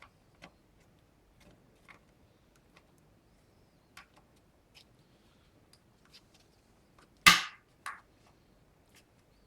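Faint scattered clicks and taps of plastic parts being handled, then a loud sharp snap about seven seconds in and a smaller one just after: the plastic cover of a Volkswagen trunk lock clipping into place over its gears.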